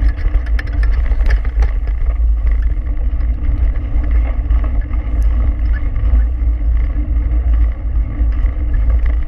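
Wind buffeting the handlebar camera's microphone as a mountain bike is towed fast along a dirt trail, a steady heavy rumble with tyre noise and scattered small clicks and rattles from the bike.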